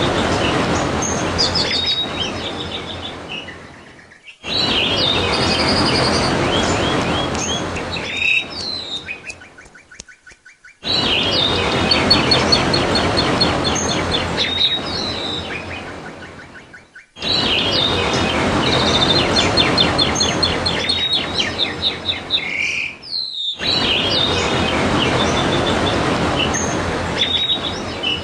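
Trickling water with small birds chirping and trilling over it: a bait recording to set white-eyes (pleci) singing. The recording fades, breaks off and restarts abruptly about every six seconds.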